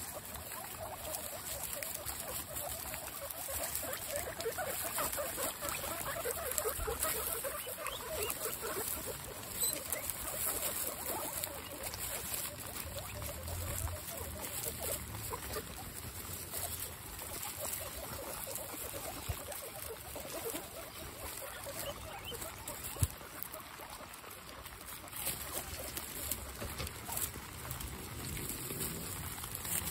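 A group of guinea pigs making short, rapid squeaking calls, thickest in the first dozen seconds and sparser after, over a steady patter of rain. One sharp knock about 23 seconds in.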